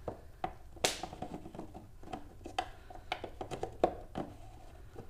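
Hands working bulbs and twist-lock sockets into the back of a plastic tail light housing: a string of small, irregular plastic clicks and taps with light rustling, the sharpest click about a second in and another near four seconds.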